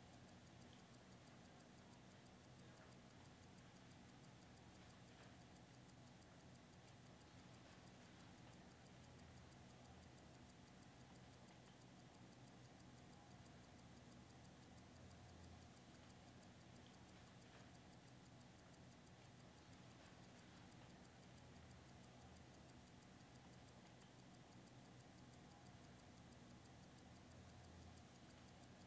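Near silence: faint room tone with a very faint, even ticking, a few ticks a second.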